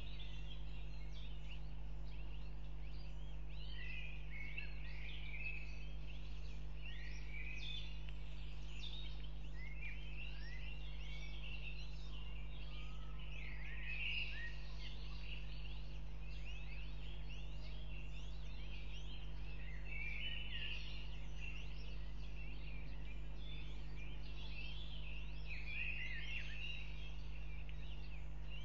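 Birds chirping and singing, many short high notes overlapping without a break, over a steady low electrical hum.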